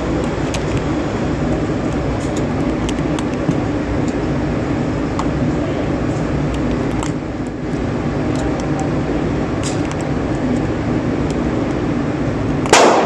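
Steady rumbling background noise with a few faint clicks, then near the end a single loud shot from a Glock 20 pistol in 10mm Auto, firing 180-grain hollow-point rounds.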